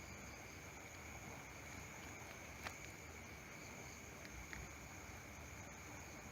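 Night insects chirring steadily at two high pitches, with a few faint clicks about two and a half and four and a half seconds in.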